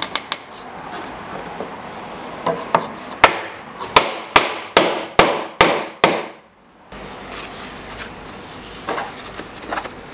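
A hammer striking wood: a run of about seven sharp blows, roughly two to three a second, each ringing briefly. The blows stop abruptly, and a few light wooden knocks and handling sounds follow.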